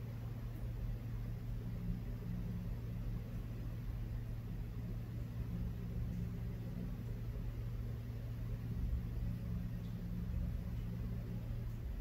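Steady low hum and rumble with a faint hiss, unchanging, with no distinct events.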